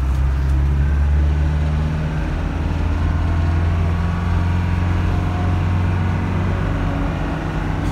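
Land Rover Defender 110 driving on the road, heard from inside its cabin: a steady low engine drone with road noise.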